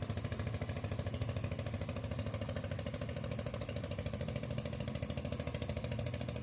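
A small engine running steadily at a low, even speed with a fast, regular putter.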